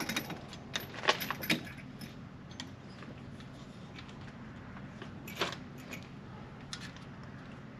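Light metallic clinks and rattles of a PowerStop Z26 brake pad and its retaining pin being worked into a brake caliper by hand: a quick cluster of clicks in the first second and a half, then a few scattered ones, the loudest about five and a half seconds in.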